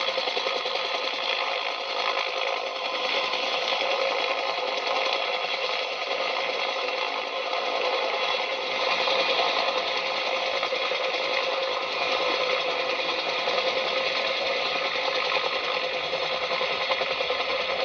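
A small battery-powered toy motor running with a steady, rapid rattle that holds at an even level throughout.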